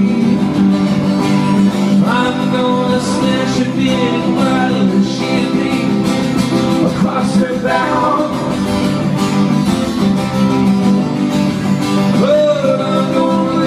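Live instrumental passage on two guitars: a strummed acoustic guitar holding steady chords, with an electric guitar playing lead notes that bend up and down in pitch over it.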